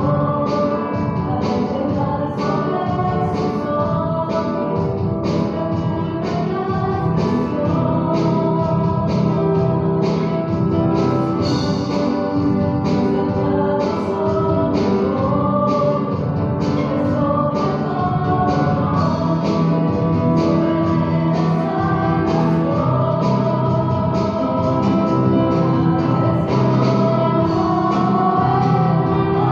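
Christian worship song: voices singing over a steady beat.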